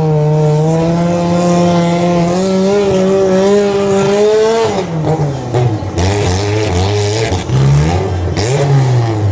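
Garden pulling tractor's engine running at high revs under load as it pulls the weight sled, its pitch held nearly steady. About halfway through the revs drop and then rise and fall several times in quick swings.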